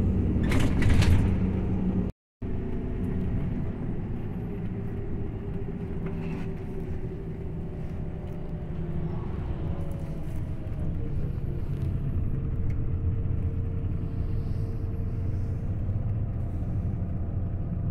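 Irisbus Crossway bus heard from inside the passenger cabin while driving: the diesel engine runs steadily over road rumble, its pitch shifting as the bus changes speed. A brief hiss about a second in, and the sound cuts out for a moment just after two seconds.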